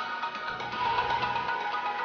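Background music: a melody on bright, chime-like tones, with a low beat coming in about half a second in.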